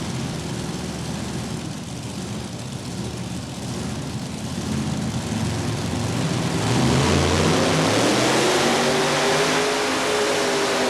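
Supercharged engine of a modified pulling tractor running low, then revving up hard and loud about two-thirds of the way through as the pull gets under way.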